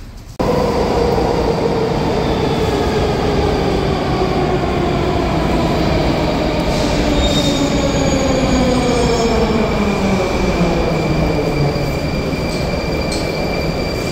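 Loud mechanical rumble with an electric motor whine that falls slowly and steadily in pitch over about twelve seconds, and a thin steady high tone above it.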